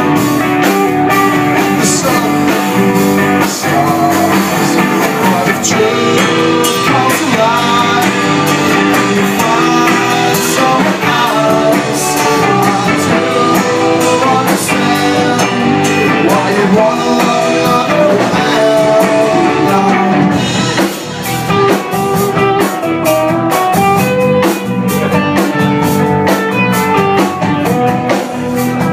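Live rock band playing loudly: electric guitars, bass guitar and drum kit, amplified through the club's PA.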